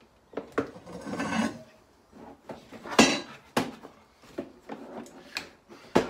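Hard plastic panels of a Bosch Rotak 34-13 lawnmower grass box being handled and pushed together: a string of sharp knocks and clicks, the loudest about three seconds in, with a rustle about a second in.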